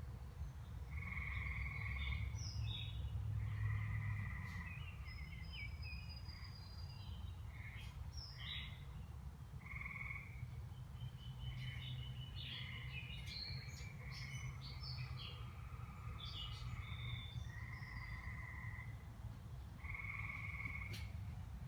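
Outdoor animal calls: a short call repeated every two to three seconds among scattered higher bird chirps, over a steady low rumble.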